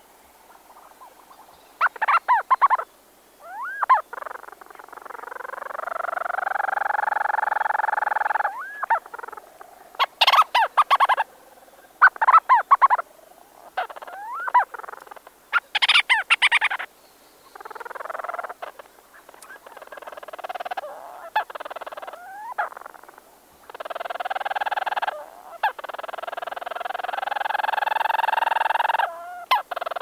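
Leach's storm petrels, two birds calling close up in a burrow. Short bursts of rapid stuttering chatter alternate with long, steady churring purrs that rise in pitch as they begin.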